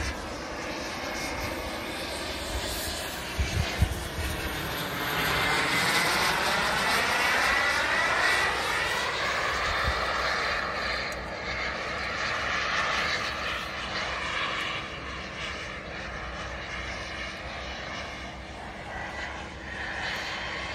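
Turbine engine of a large radio-controlled model jet flying past, a steady jet rush that swells for several seconds and then fades as it moves away.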